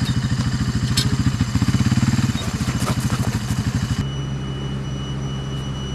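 An engine idling with a fast, even throb and a sharp click about a second in. About four seconds in, the sound cuts to a steadier, smoother engine hum.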